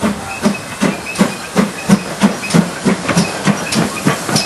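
GWR small prairie tank locomotive 5526 working slowly past at close range: a steady beat of about three exhaust chuffs a second, growing louder as it nears.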